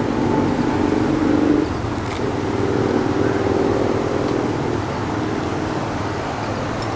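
Shallow river rushing over rocks, a steady hiss of water. Over it a motor vehicle's engine hums at a steady pitch, fading out after about five seconds.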